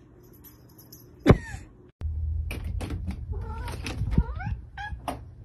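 A sharp thump about a second in. Then a domestic cat meowing several short meows, shaped like the words "thank you", over a steady low hum.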